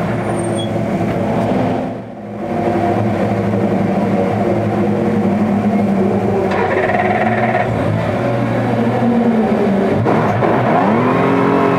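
Honda NSX GT3's twin-turbo V6 idling, heard from inside the cockpit, with a short dip in level about two seconds in. Near the end the revs rise and fall a couple of times.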